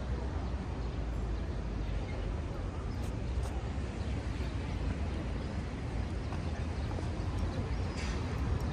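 City street ambience: a steady low rumble of traffic and crowd noise, with a few short clicks, two about three seconds in and one near the end.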